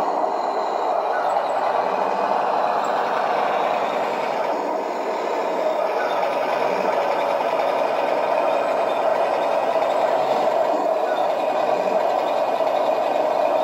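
A 1:16 Heng Long RC tank, converted to an M7 Priest, driving across a wooden floor. Its electric drive gearboxes and plastic tracks make a steady whirring, mechanical running noise, mixed with the simulated engine sound from its sound unit.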